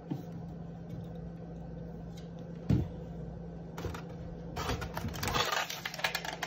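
Kitchen clean-up handling noises over a steady low hum: a single thump about three seconds in, then a couple of seconds of clattering and rustling near the end.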